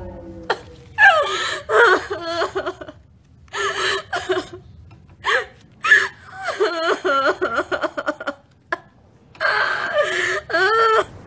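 A woman sobbing hard, with gasping breaths and several broken, wavering cries.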